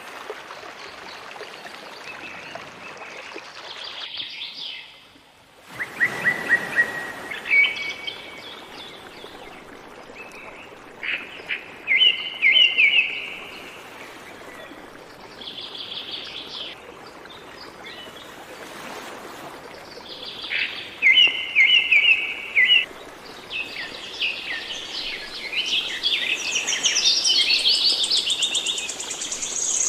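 Several songbirds singing and chirping in repeated short phrases over a faint steady hiss. There is a brief break about five seconds in, and the song grows busier and higher near the end.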